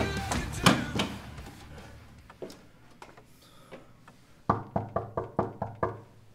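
Rock music trailing off over the first couple of seconds, then a quick run of about eight knocks on a door, roughly five a second.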